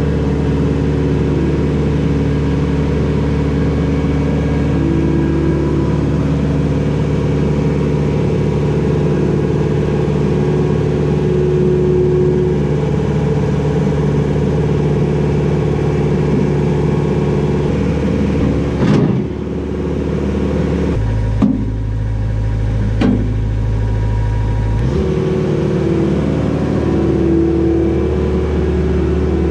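Skid steer engine running steadily while the bucket is being hooked on. A few knocks come about two-thirds of the way through, and the engine note changes for a few seconds.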